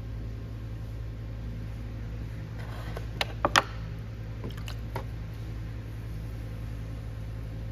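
Steady low hum, with three sharp knocks a little over three seconds in and two fainter ticks about a second later.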